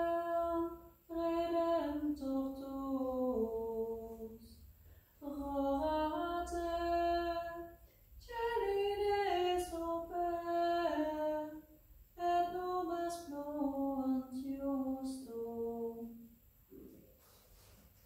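A woman singing unaccompanied, a slow chant in five phrases that each step downward in pitch, with short pauses for breath between them. The singing ends shortly before the close, leaving faint clicks.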